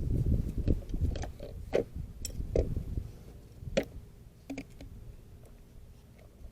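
Hands working on engine parts: a quick run of light clicks and knocks over low rumbling handling noise for about three seconds, then two isolated clicks.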